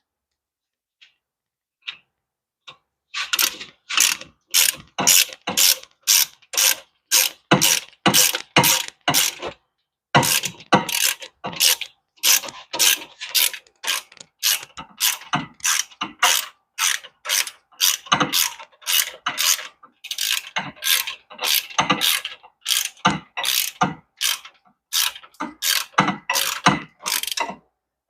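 Hand socket ratchet being worked in quick strokes, about two or three a second, each stroke a rattle of pawl clicks, as a hub assembly bolt is turned. The strokes start about three seconds in and pause briefly about ten seconds in.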